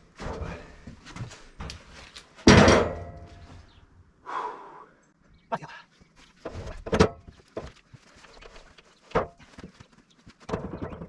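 A timber slab being shifted into place on a portable sawmill's steel bed: a series of knocks and thuds, with one heavy thump about two and a half seconds in and lighter knocks after it.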